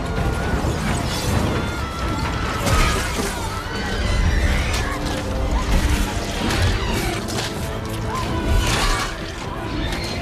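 Film battle soundtrack: orchestral score mixed with repeated crashes and impacts.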